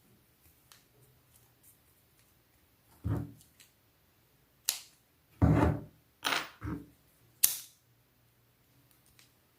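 A handheld lighter being struck several times to burn off a crochet thread end: a run of sharp clicks and short scraping bursts, from about three seconds in to past the middle.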